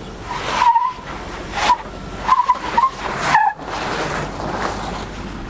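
Off-road tyres of a lifted 2004 Land Rover Discovery 2 squealing in short, wavering bursts as they grip and slip on steep slickrock, about four times in the first three and a half seconds, over a steady low rumble.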